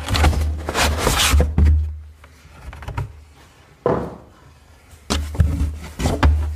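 Large cardboard box and its packaging being handled while a subwoofer is unpacked: rubbing and rustling of cardboard with dull bumps, a sharp knock a little after halfway, then more rustling.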